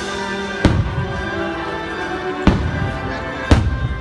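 Aerial firework shells bursting: three sharp booms, about a second in, halfway through and near the end, over continuous music.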